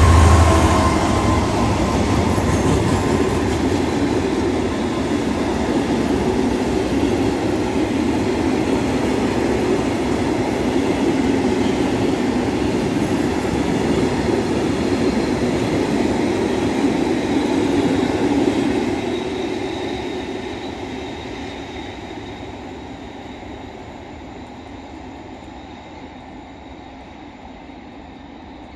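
Freight train of high-sided box wagons hauled by a Class 66 diesel locomotive, rolling past: a steady rumble and clatter of wheels on the rails, loudest at the very start. It fades away after about 19 seconds as the train recedes.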